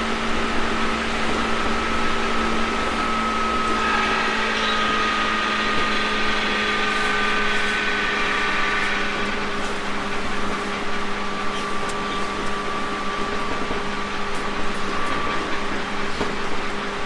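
JR Kyushu 811 series electric train running, heard from inside the car: a steady whine from its traction motors, the harsh 'jet sound', over rumbling track noise. Between about four and ten seconds in, a set of higher tones slides slowly downward.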